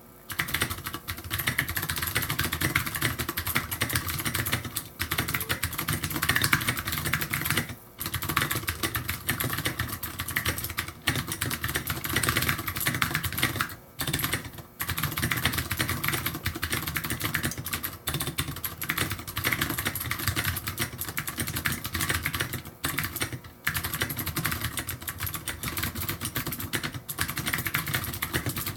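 Fast continuous typing on a mechanical keyboard with Cherry MX Blue clicky switches and SA-profile keycaps: dense clicking keystrokes, broken by a handful of brief pauses.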